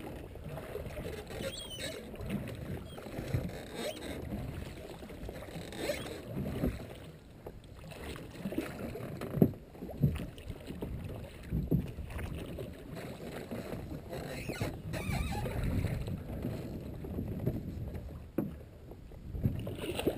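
Water lapping and sloshing against a drift boat's hull, with occasional short knocks and splashes.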